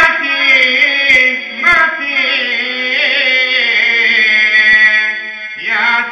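A male hafiz sings a Bosnian kasida (Islamic devotional song) solo, in one long phrase of held notes with wavering ornaments. The phrase ends about five and a half seconds in and the next begins right after.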